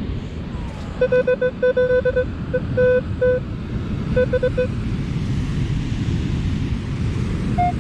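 Metal detector giving a run of short, clipped beeps on one steady tone for about four seconds, then one higher beep near the end, over steady surf and wind noise. The beeps are its response to a target in the pull-tab range, a small aluminum fragment.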